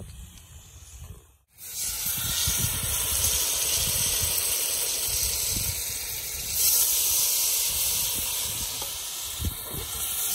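Raw chicken pieces sizzling as they go into hot oil in a pot on a gas-cylinder burner: a loud, steady hiss that starts about a second and a half in and swells briefly about halfway through.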